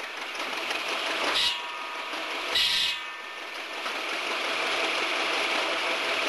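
Large circular buzz saw spinning as it cuts wood, a steady whir that swells louder twice, about a second and a half and two and a half seconds in.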